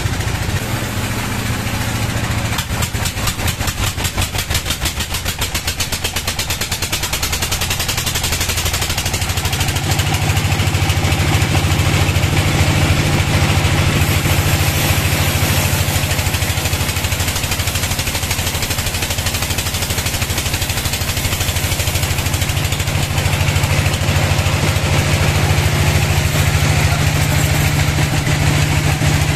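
Band sawmill running, its blade cutting lengthwise through a log: a steady low hum under a hiss. In the first several seconds a fast, even ticking runs over it.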